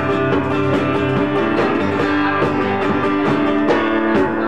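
Acoustic guitar strummed live in an instrumental passage of a punk-country song, with steady, even strokes.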